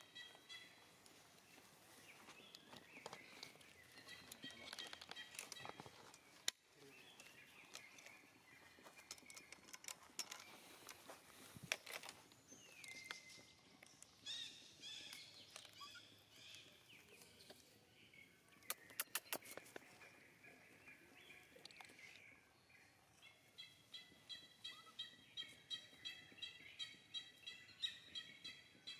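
High-pitched animal chirping calls repeated about twice a second, with a few sharp clicks in between; the chirping is steadiest near the end.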